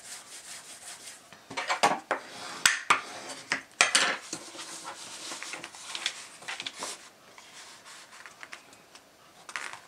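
Plastic laminate film rustling and crinkling as hands fold it over a soft cover book and rub it down, with a few sharp clicks and taps about two to four seconds in.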